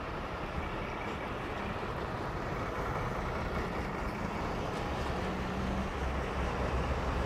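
Trolleybus driving by: a steady rumble with faint thin whining tones over it, growing a little louder toward the end.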